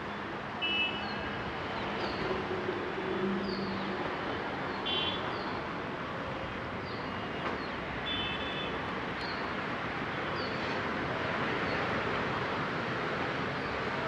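Steady hiss of outdoor background noise with small birds chirping over it: short, high, falling notes repeated about once a second, and a few brief buzzy notes about a second, five seconds and eight seconds in.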